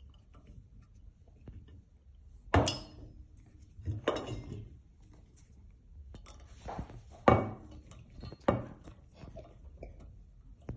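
Brass door-handle hardware and an Allen key clinking and knocking against each other as the handle is fitted: four sharper metallic knocks with short ringing, and lighter ticks between them.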